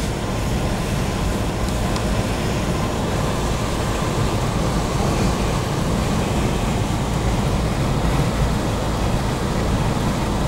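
Steady road noise heard from inside a moving vehicle on a rain-wet highway: tyres on the wet surface and the engine, a constant low rumble with a hiss over it.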